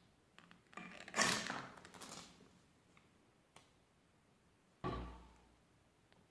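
A harsh scrape lasting about a second, followed by a few light ticks, then a sudden dull thud near the end that dies away over about a second.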